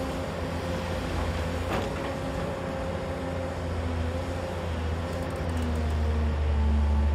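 JCB crawler excavator's diesel engine running with a steady whine as the bucket is lowered into the pit and digs; the engine gets louder and deeper about five seconds in as it takes the load of the dig.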